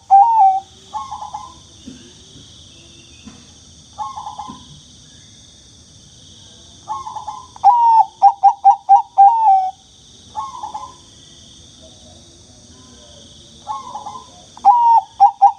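Zebra dove (perkutut, Bangkok strain) singing: a run of quick clipped coos ending in one longer drawn-out note, about seven seconds in and again near the end, with shorter single coos in between.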